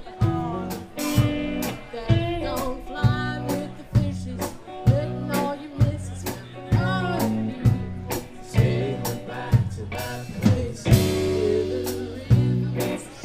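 Live blues band playing: a drum kit keeps a steady beat under electric guitar with bent notes.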